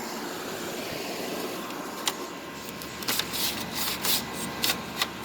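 GE 6500 BTU window air conditioner running steadily on high fan. From about two seconds in, a string of short plastic clicks and rustles comes as its accordion side panels are pulled and pushed.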